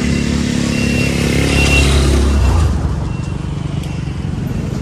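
Motorbike engine running close by for about two and a half seconds, then dropping away into steady street-market background noise.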